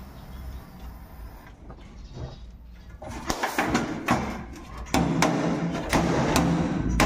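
Quiet background, then a few sharp knocks about three seconds in. About five seconds in, background music with a steady beat comes in.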